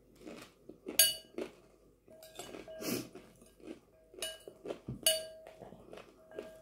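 A metal spoon clinking and scraping against a glass bowl as food is scooped. Two sharp, ringing clinks come about a second in and about five seconds in, with lighter taps between.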